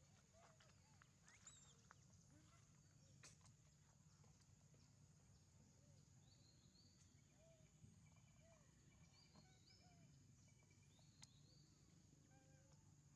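Near silence: faint outdoor ambience with a steady low hum and a steady high hiss, scattered faint short chirps and calls, and a few light clicks.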